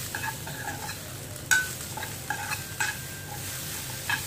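A spoon stirring and scraping sliced snake gourd around a non-stick frying pan, with a light sizzle as the vegetable dry-fries in spiced oil. One sharper click comes about a second and a half in.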